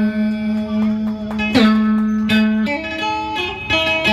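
Amplified guitar playing a plucked instrumental passage in Vietnamese đờn ca tài tử style, with bent, sliding notes over a held low note.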